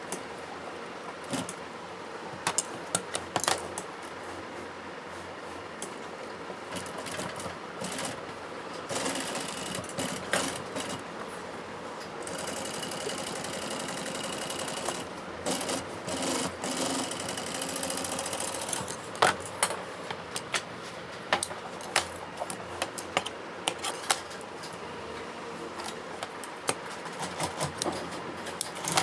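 Steel tailor's shears snipping through leather in sharp, irregular clicks, over the steady running of an industrial sewing machine.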